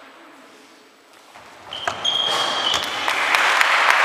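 Spectators in a sports hall applauding a basketball free throw: a hushed pause while the shot is taken, then applause rising about two seconds in. Short, high squeaks of basketball shoes on the wooden floor come in as play restarts.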